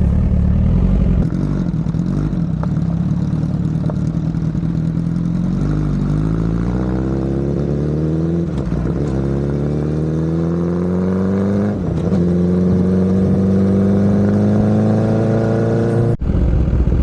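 Sportbike engine under way, first a steady drone, then accelerating from about six seconds in with the pitch climbing, dropping back twice at upshifts and climbing again. The sound cuts out for an instant near the end.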